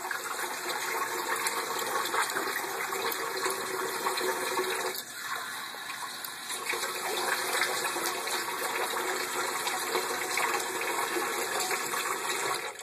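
Kitchen sink faucet running water steadily into the sink, with a brief dip about five seconds in, then shut off near the end.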